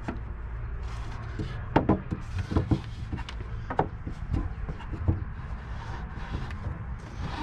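A newly built wooden drawer being slid and pushed into its opening in an antique table: a series of wooden knocks and scrapes as it goes in, and it ends up a snug fit.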